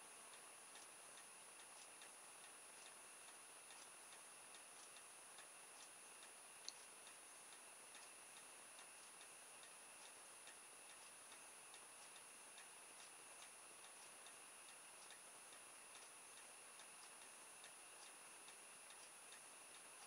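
Near silence with faint, regular ticking at an even pace and a thin, steady high whine; one sharper click about seven seconds in.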